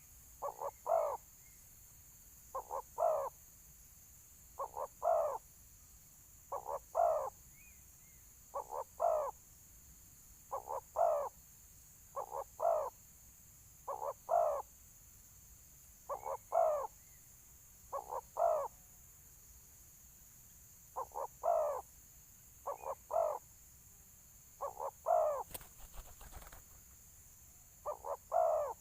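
Spotted dove (balam) cooing its fighting call, a deep phrase of two short notes and a stronger, longer one, repeated about every two seconds. A short rustle of handling noise about 25 seconds in.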